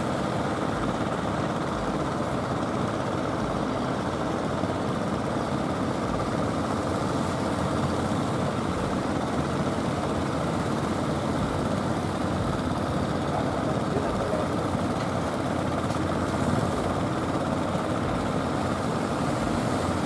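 Fishing boat's engine running steadily as the boat motors past, a continuous even drone.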